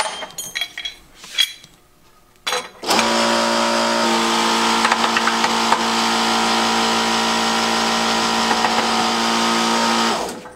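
Sunnen hydraulic shop press's pump motor running with a steady hum. It starts about three seconds in and cuts off near the end, while the press pushes a race out of a Harley-Davidson connecting rod under about two tons. Light metal clinks of tools come before the motor starts.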